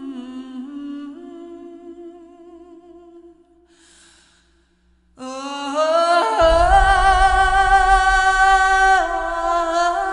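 Background music of slow, held vocal-like notes. They fade out over the first few seconds, then a louder passage comes in about five seconds in, with wavering notes over a low rumble.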